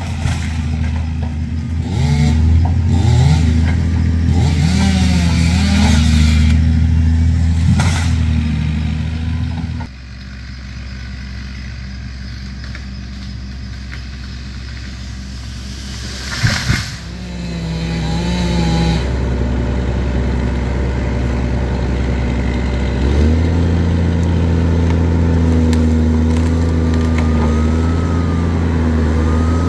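Caterpillar tracked excavator's diesel engine working under load, with tones gliding up and down over it; it eases to a lower level about ten seconds in and builds back up past the twenty-second mark. A few sharp cracks of breaking wood stand out over the engine as brush and trees are cleared.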